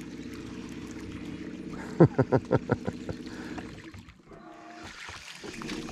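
Baitcasting reel being cranked during a lure retrieve, a steady whirring hum that fades after about four seconds. About two seconds in, a quick run of six loud, sharp pitched notes rises over it.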